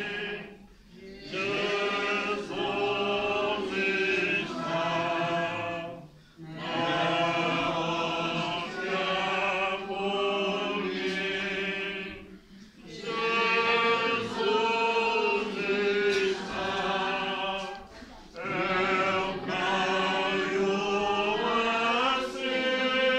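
A group of voices singing a slow Catholic hymn, in phrases of about five to six seconds with held notes and short pauses for breath between them.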